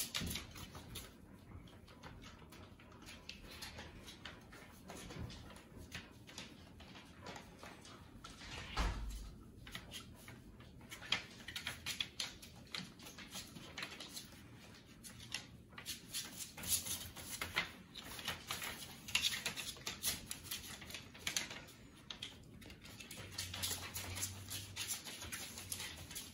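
A litter of young puppies eating together from a shared metal pan and scampering about on a paper-covered floor: an irregular patter of small clicks, scratches and scrabbling.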